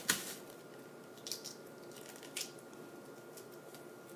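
Hard-boiled eggshells being cracked and crumbled inside a plastic grocery bag: a few short, soft crunches and crinkles of shell and plastic.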